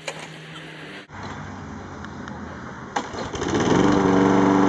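Walk-behind lawn mower's small engine starting about three and a half seconds in, just after a sharp click, then running loud and steady.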